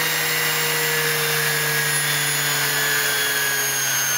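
Neiko mini bench grinder's high-speed motor running with no load, its 3-inch grinding and polishing wheels spinning free. The whine falls slowly and smoothly in pitch as the speed dial winds it down from just over 10,000 RPM.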